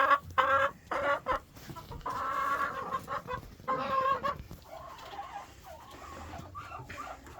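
Domestic poultry calling on fresh wood shavings: a quick run of short calls, then a few longer calls, fading to softer chatter.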